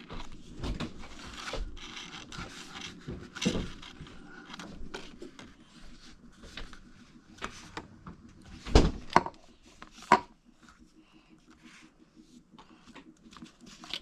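Hands pressing and rubbing Model Magic modelling compound around a plastic volcano tube on a table, with irregular rustles and light taps. A sharper knock comes about nine seconds in and another about a second later, then the handling goes quieter.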